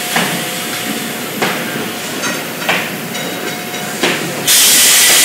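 Oak barrel staves and a steel hoop knocking sharply a few times as the hoop is worked down over a newly raised barrel, over the steady noise of cooperage machinery. Near the end a loud hiss of escaping air starts and keeps going.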